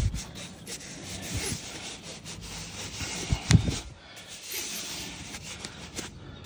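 Handling noise of foam pipe insulation being rubbed and pushed along a copper refrigerant line, with a knock at the start and a sharper knock about three and a half seconds in.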